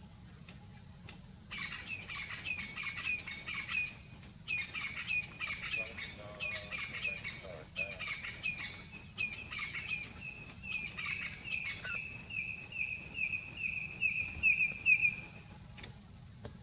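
A bird calling in bouts of fast, harsh chattering notes for about ten seconds, then a run of quick repeated clearer notes that stops shortly before the end.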